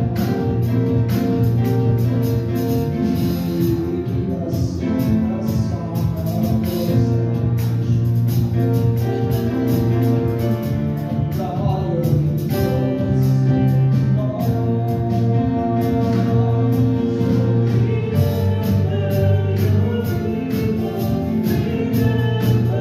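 Voices singing a hymn with instrumental accompaniment, in long held notes.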